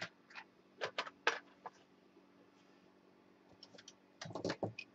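Hands rummaging for and picking up small pieces of heat shrink tubing: scattered light clicks and ticks in the first second or two, then a louder cluster of knocks and rustles near the end.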